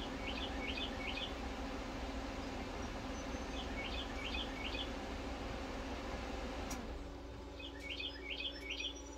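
Eastern whip-poor-will singing its three-note 'whip-poor-will' phrase three times, each phrase about a second long, with a pause of a few seconds between them.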